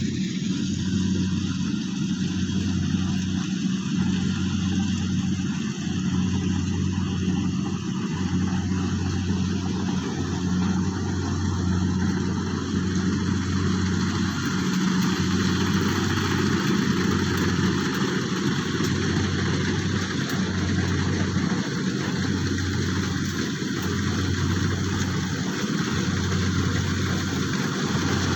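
Engine of a rice harvesting machine running steadily, a low drone with brief dips every second or two over a wide mechanical rush.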